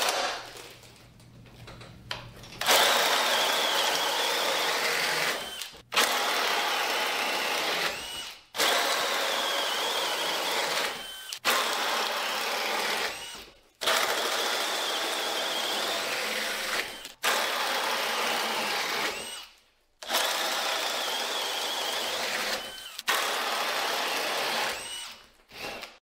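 DeWalt DCD999 hammer drill at speed 3 boring through wood with a 2-9/16 in. Milwaukee Switchblade self-feed bit, in a series of about eight bursts of two to three seconds each, with a brief rising whine at the end of each.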